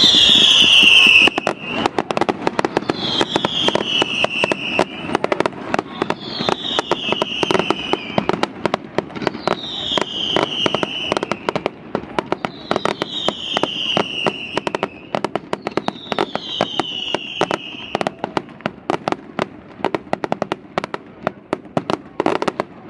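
Fireworks display: a dense, continuous crackle of small bangs, with a high whistle falling in pitch about every two to three seconds. The crackle thins and quietens toward the end, then comes a short cluster of louder cracks.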